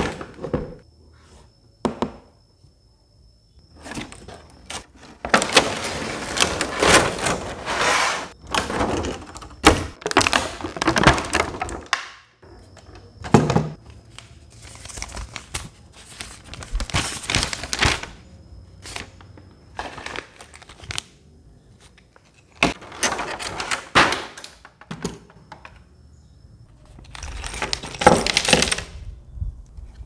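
Unpacking noise: a thunk at the start, then several long spells of rustling and crinkling as paper and plastic packaging are handled.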